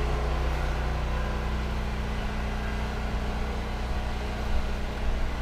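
Small utility water pump running with a steady motor hum, pumping flood water out of a basement through a garden hose.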